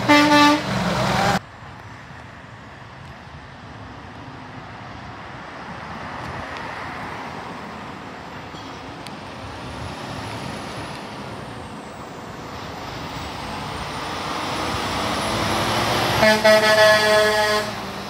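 A truck air horn blasts at the start and cuts off abruptly after about a second and a half. Road and engine noise from passing traffic follows, swelling as another truck approaches, and a second truck air horn sounds for about a second and a half near the end.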